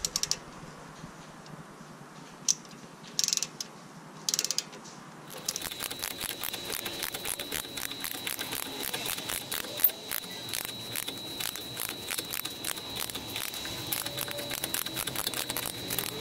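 Ratchet wrench clicking as it drives a bolt, fitted backwards against a washer, to spread open the steering knuckle's strut clamp. A few short bursts of clicks come first, then rapid, steady clicking from about five seconds in.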